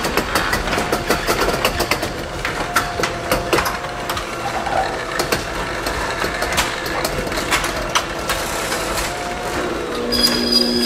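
Chamberlain RJO20 jackshaft garage door opener running as it raises the door, a steady motor hum with many small irregular clicks and rattles.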